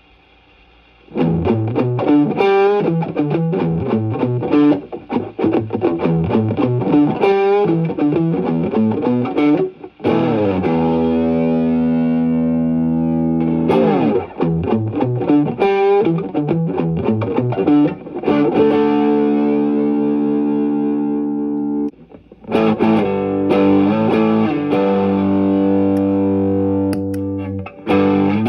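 Electric guitar played through an overdrive pedal and a Caline CP-47 Pressure Tank compressor pedal, with distortion. Lead phrases with bent and wavering notes alternate with long ringing chords. Playing starts about a second in and stops briefly a little over three-quarters of the way through.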